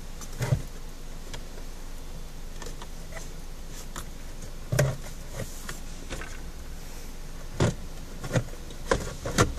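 Hard plastic dashboard trim of a Ford Fiesta's centre screen housing being handled and fitted: a scattering of sharp clicks and knocks, several close together near the end, over a steady faint hiss.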